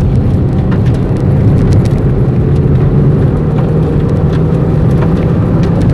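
Chevrolet Beat's engine and wet-road tyre noise heard from inside the cabin while driving hard on a wet track: a loud, steady drone with scattered light ticks.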